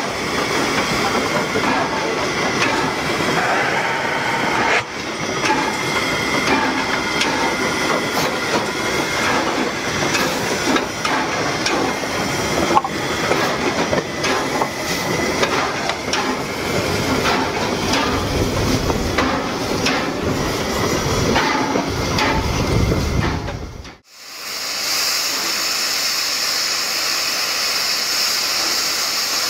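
Finnish Hv3-class steam locomotive (No. 995) standing, with steam hissing and scattered clanks and knocks. A sudden break comes about 24 seconds in, followed by a steady high hiss of escaping steam.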